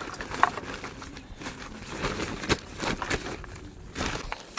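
Rustling and handling noises with a few scattered sharp clicks.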